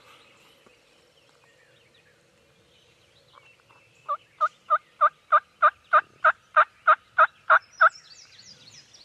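Wild turkey calling: a run of thirteen evenly spaced yelps, about three a second, starting about four seconds in.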